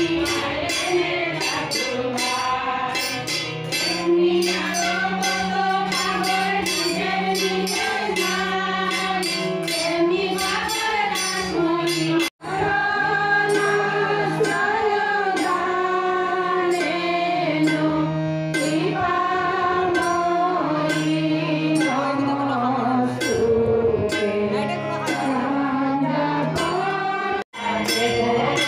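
A group of women singing a Bengali devotional Dol Purnima song, a lead voice on microphone with the others joining in. A harmonium holds a steady low tone under them, and hand-clapping keeps time. The sound cuts out for an instant twice, about halfway through and near the end.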